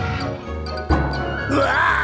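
Cartoon background music, with a sudden accent about a second in and a wavering high melody line coming in near the end.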